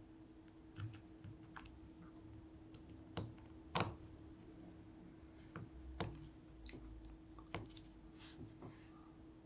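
A linear mechanical keyboard switch being opened in a metal switch opener: a few sharp plastic clicks and snaps as the housing is pressed and pried apart, the loudest about four seconds in.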